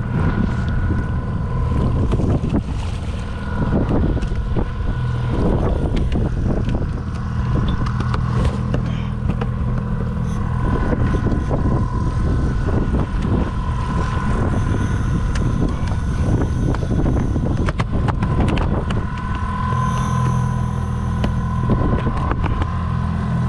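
Boat outboard motor running steadily at trolling speed, a low hum with a thin whine above it, with wind on the microphone. Scattered knocks and thumps come from a landed California halibut being handled on the carpeted deck.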